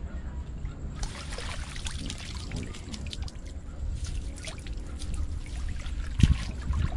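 Water pouring and dripping off a long mesh hand net as it is lifted out of shallow water, over low sloshing from wading. There is a single low thump shortly before the end.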